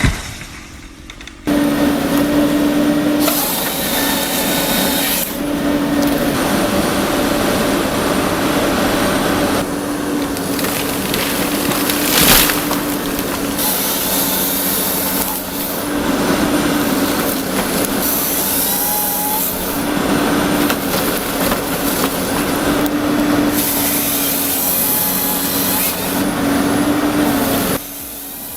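Powered saw cutting through wood: a steady, high engine note under a gritty cutting noise, with a loud sharp crack about twelve seconds in.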